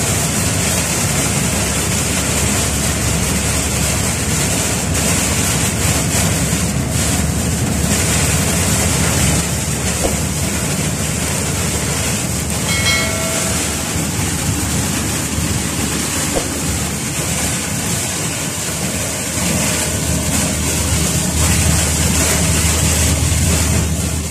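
Steady noise of a car driving in heavy rain, heard from inside the cabin: tyres on the wet road, rain on the car and the engine running all blend into one even noise. A short chime sounds about halfway through.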